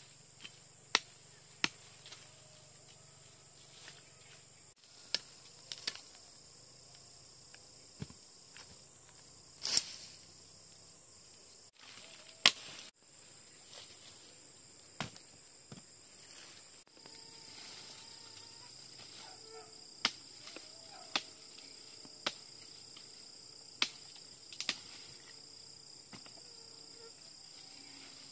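Insects chirring steadily and high-pitched in forest, with irregular sharp knocks or chops every second or two.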